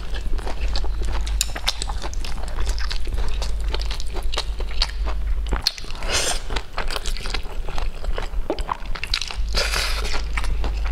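Close-miked eating: biting and chewing with many small wet clicks. Noodles are slurped in longer hissing draws about six seconds in and again near ten seconds.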